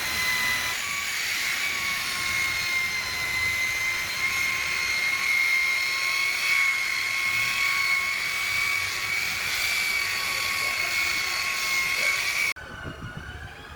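Electric paint polisher running steadily with a high whine that wavers slightly in pitch as it buffs the paint. It cuts off abruptly near the end, leaving a quieter wavering tone.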